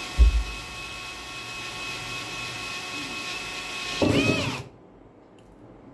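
Electric drill running steadily with a Bosch HSS-R bit, boring out a larger hole over a pilot hole. A low thump comes just after the start. About four seconds in, the pitch briefly swings up and down, then the drill stops suddenly.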